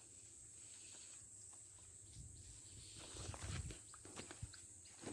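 Faint footsteps on a dirt path with some handling noise, growing louder about three seconds in, over a steady high-pitched hiss.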